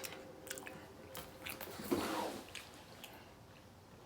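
Close-miked chewing of crunchy fried pickles coated in hot Cheetos: scattered crunches with wet, squishy mouth sounds, and a louder burst about two seconds in.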